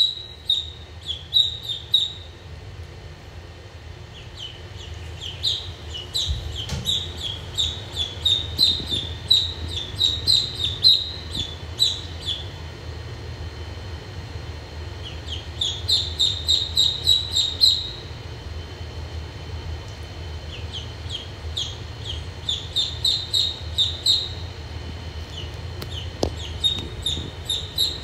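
Duckling peeping: runs of short, high peeps, about four or five a second, in bursts of a few seconds with short pauses between. Loud, insistent peeping like this is the distress call of a duckling left on its own.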